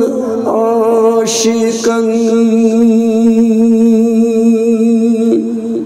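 A man singing a Kashmiri manqabat, a devotional hymn, drawing out one long note with a wavering vibrato. The note breaks off shortly before the end.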